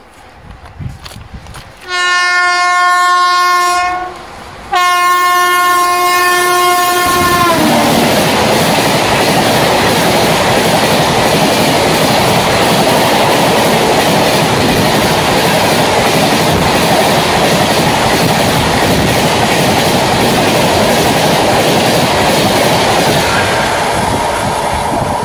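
An Indian Railways express locomotive's horn sounds two long blasts, the second dropping in pitch as the locomotive passes close by. Then comes the loud, steady rushing noise of its LHB passenger coaches going past at speed, easing slightly near the end as the last coach draws away.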